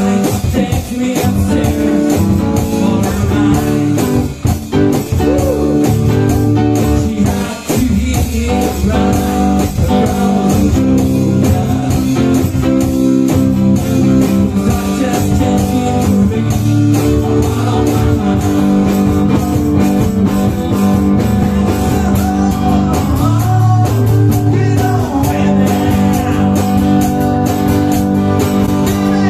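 One-man band playing live: a hollow-body electric guitar over a steady beat from a Farmer foot drum kit, with the bass drum and cymbal played by foot.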